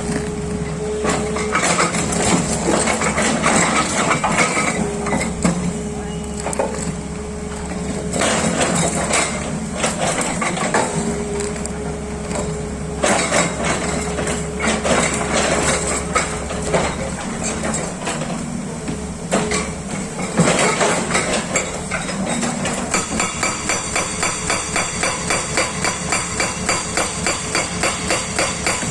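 Hydraulic rock breaker on a SANY excavator hammering rock over the excavator's running diesel engine. The blows are uneven at first, then settle into a fast, steady hammering rhythm near the end.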